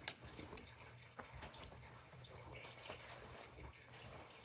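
Near silence with faint handling noises: a sharp click right at the start, then a few soft ticks and rustles of the wool trousers being handled.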